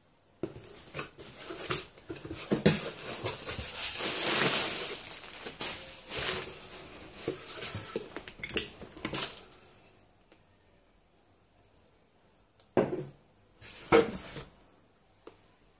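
Cardboard shipping box being opened by hand: about nine seconds of crinkling, scraping and rustling with sharp clicks, then quiet broken by two short knocks as the plastic supplement tubs inside are moved.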